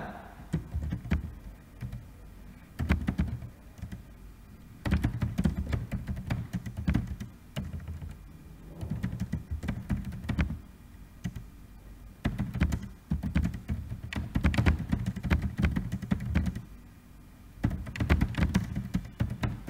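Computer keyboard typing, several runs of rapid keystrokes separated by short pauses.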